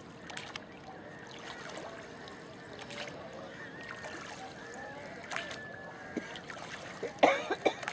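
Wooden rowing boat under oars: light water sounds with scattered oar knocks and creaks. A quick cluster of sharp knocks near the end is the loudest sound.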